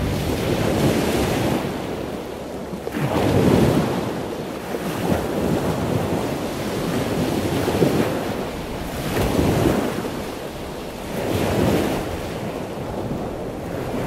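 Ocean surf: waves washing in, the sound swelling and falling away every couple of seconds.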